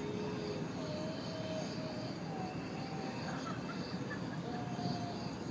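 Steady roar of propane flames from a fire sculpture's burner. Short distant voices call out now and then over it.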